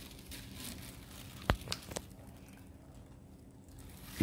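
Quiet handling of a plastic squeeze bottle of fluid acrylic paint over paper cups: one sharp click about a second and a half in, then two lighter ticks.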